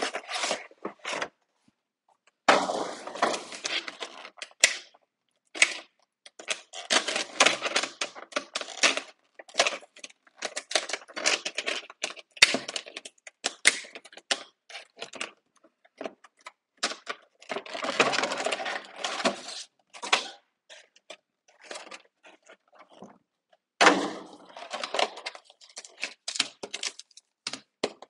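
Crinkling, rustling and tearing of a Pokémon card box's packaging and foil booster packs being handled and opened, in quick irregular bursts with small clicks and knocks.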